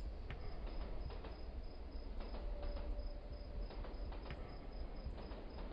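Model freight train rolling past: a low rumble with irregular clicking of the wheels over the rail joints. Over it runs an even, high cricket-like chirping, about four or five chirps a second.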